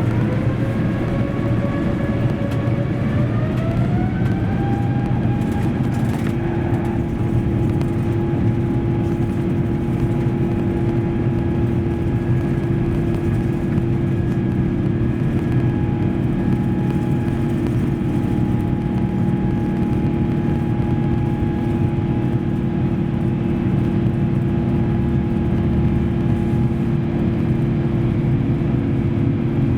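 Airbus A350's Rolls-Royce Trent XWB turbofan engines spooling up, heard from the cabin: a whine that rises in pitch over the first six seconds or so, then holds steady over a constant low rumble.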